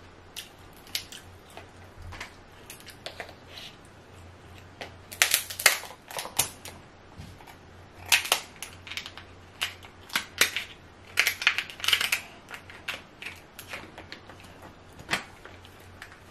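King crab leg shells cracking and snapping as they are broken apart by hand and cut with kitchen scissors: irregular sharp cracks, coming in dense clusters about five seconds in, again between eight and twelve seconds in, and once more near the end.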